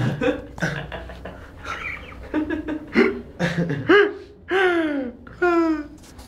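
Playful voices and laughter around a baby, with several high, drawn-out sing-song vocal glides in the second half.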